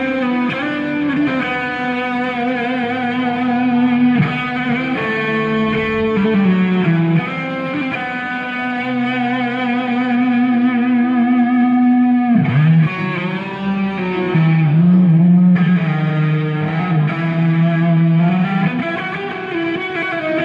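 Electric guitar solo through distortion and effects: long sustained notes with wide vibrato, and a sharp dip and rise in pitch a little past halfway.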